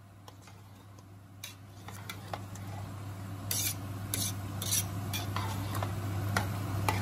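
A spoon stirring and scraping through a pot of chickpea curry, with a few sharp clinks and scrapes against the pan, over a steady low hum.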